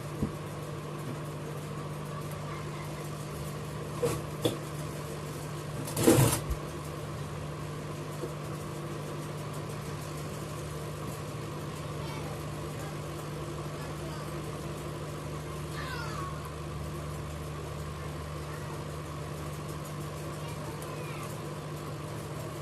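Hot-air rework station blowing steadily with a constant humming drone while the phone's damaged charging socket is heated to desolder it. A couple of clicks come about four seconds in and a short loud rush about six seconds in.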